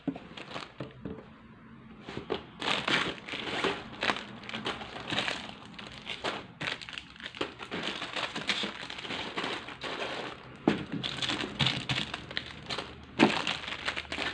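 Plastic-wrapped squishy toys crinkling and rustling as they are handled and packed one by one into a cloth shopping bag. Irregular crinkling starts about two seconds in, with a couple of sharper crackles near the end.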